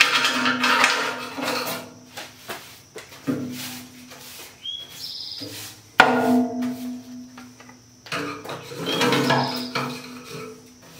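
Screwdriver scraping and knocking along the steel cutting edge of a tractor loader bucket, clearing packed dirt; each knock sets the bucket ringing, with a sharp clang about six seconds in and short squeaks of metal on metal.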